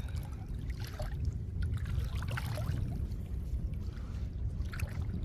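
Small splashes and trickles of water around a small fishing boat, over a steady low rumble.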